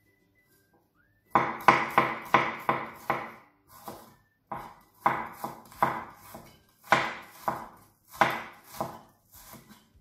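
Kitchen knife chopping shallots on a round wooden chopping board: runs of quick knocks, about three to four a second, starting about a second in and coming in several bursts.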